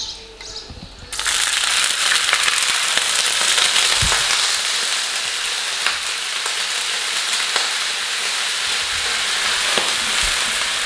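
Three or four spoonfuls of water added to melted, browned sugar in hot oil in a frying pan: it breaks into a loud, steady sizzle about a second in, with scattered crackles, as the caramel is loosened into a syrup.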